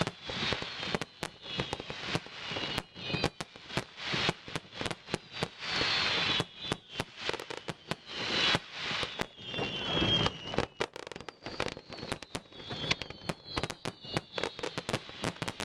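Fireworks crackling in a dense, fast stream of sharp pops. Several high whistles slide slowly downward in pitch over the crackle.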